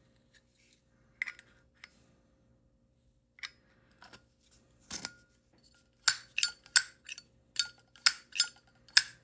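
Zippo Classic lighter's metal case clinking and clicking as it is handled: a few scattered clicks, then about eight sharp clinks in quick succession over the last three seconds.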